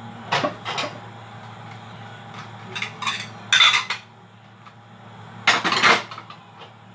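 Ceramic plates clinking and clattering as they are handled at a wire dish rack and wiped with a cloth, in three bursts: just after the start, around the middle, and near the end, over a steady low hum.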